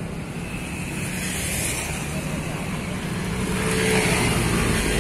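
Road traffic running along the bank, a steady rumble and hiss that grows louder as a vehicle approaches.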